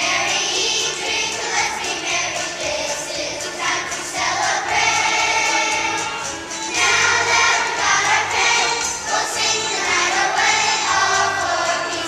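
A children's choir singing with musical accompaniment.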